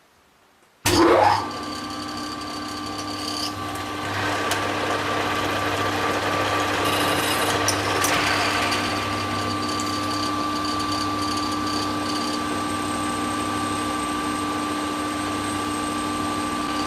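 Denford Easiturn lathe starting up suddenly about a second in, then running steadily with a hum and whine. About four seconds in a rougher cutting noise comes in as the tool turns a recess in a stepper-motor mounting plate held in a four-jaw chuck.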